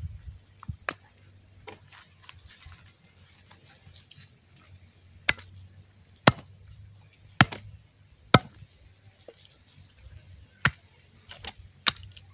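A large machete-style chopping knife hacking through goat meat and bone on a plastic sheet laid on the ground. About nine sharp, irregularly spaced chops, the loudest in the middle.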